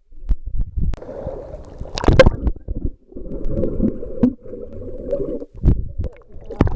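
Muffled water sounds picked up by a waterproof camcorder under the water of a swimming pool: gurgling and sloshing, with low bumps and a sharp thump about two seconds in.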